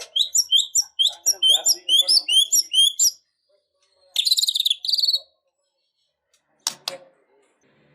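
White-rumped shama (murai batu) singing: a quick run of about ten rising whistled notes for three seconds, then a short buzzy trill, then a pause and two sharp notes near the end.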